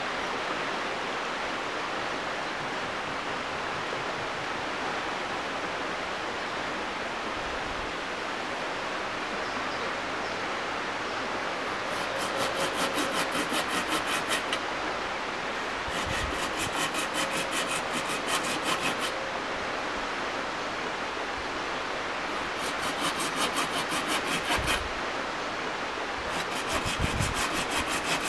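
A curved folding pruning saw cutting through a thin wooden pole in four bouts of quick back-and-forth rasping strokes, starting about halfway through, with short pauses between them. A steady background hiss fills the first half.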